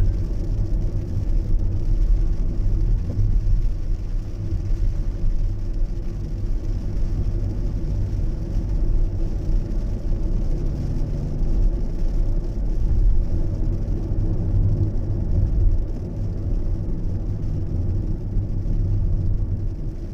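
Strong typhoon wind buffeting the smartphone's microphone: a loud low rumble that swells and eases irregularly with the gusts.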